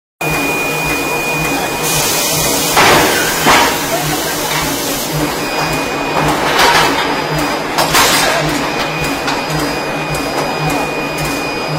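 Forging machinery running with a steady hum and a low pulse about twice a second, with several loud bangs of metal being worked, twice near three seconds in and again around seven and eight seconds in.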